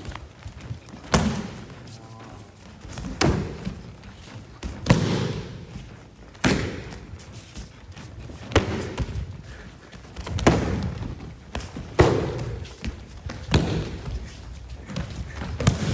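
Taido kicks striking a handheld kick pad, with bodies dropping onto the mat between them: a series of about nine sharp thuds, roughly one every second and a half to two seconds.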